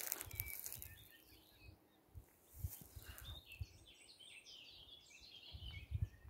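Birds chirping and twittering in a quick run of short high calls for a few seconds in the second half, over low wind buffeting on the microphone.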